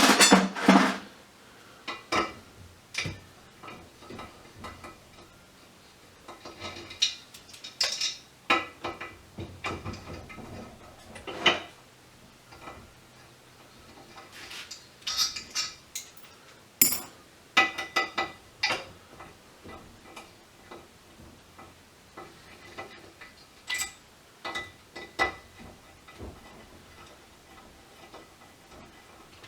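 Small metal scrap parts and screws clinking, clicking and rattling as they are handled, sorted and dropped during the dismantling of a variable frequency drive. The clinks come irregularly, in small clusters, some with a short metallic ring.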